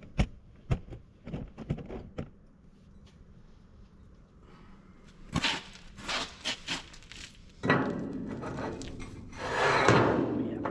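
Irregular knocks and clunks, with a cluster of sharper strikes about five to seven seconds in, then a few seconds of scraping, rubbing noise near the end.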